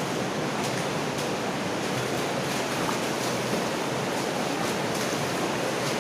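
Steady rush of water running along the floor of a stone-lined culvert, with faint splashing steps about twice a second as someone wades through it.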